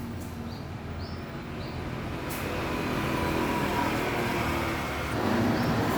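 A vehicle engine running with a steady low hum that slowly grows louder.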